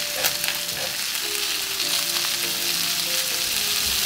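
Chicken pieces searing in butter in a cast-iron skillet, sizzling steadily. A couple of light knocks come in the first second as the pieces are pressed and moved by hand.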